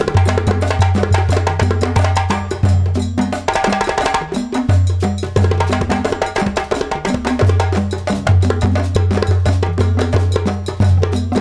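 Music played loud through a large sound system being tested, with deep bass notes held for a second or more at a time under a quick, clicky percussion beat.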